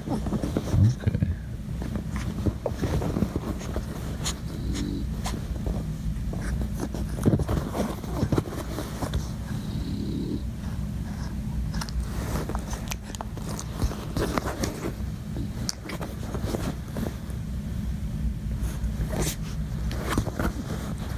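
A puppy squirming against a sweatshirt, with rustling of cloth and small scattered noises from the pup, over a steady low hum.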